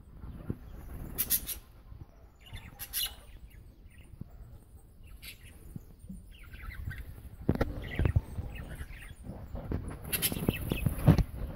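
Aviary birds, budgerigars among them, chirping and chattering in short bursts, over a low rumble with a few dull thumps.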